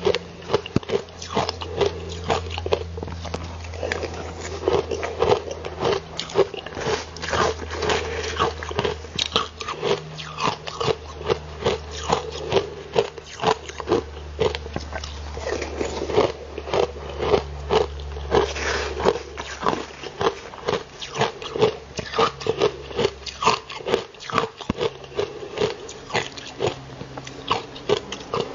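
Close-up chewing and crunching of mouthfuls of frozen ice, a rapid run of crisp, brittle crunches several times a second.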